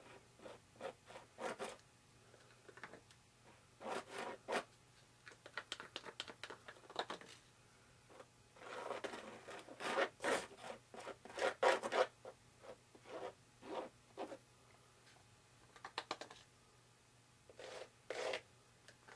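Wooden stir stick scraping the last of the epoxy from a small cup and spreading it, in short irregular scratches that come thickest about halfway through.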